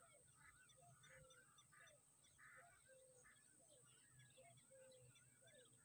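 Faint birds calling across a reedy marsh: many short chirps, whistles and warbling notes, some overlapping, over a steady high-pitched hum.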